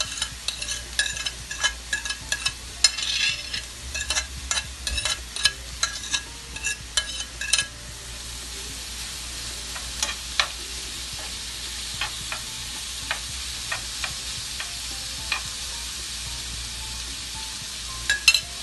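Seasoned grated chicken meat is scraped off a plate with a spoon into a hot nonstick frying pan, with quick clicks and taps of the spoon against plate and pan. After about eight seconds the meat sizzles steadily as it starts to fry, with an occasional tap of the spoon as it is stirred.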